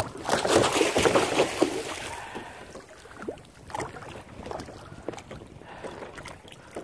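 A hooked fish splashing and thrashing at the surface beside a kayak, loudest and most continuous in the first two seconds, then smaller scattered splashes.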